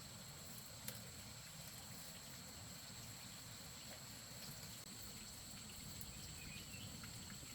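Faint forest ambience: insects trill steadily at a high pitch over a low rumble, with a single click about a second in.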